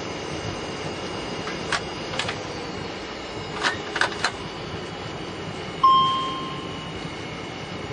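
Steady cockpit rumble of an Avro RJ100 rolling out on the runway after landing, with several short sharp knocks in the first half. About six seconds in, a single cockpit chime rings out clearly and dies away over about a second.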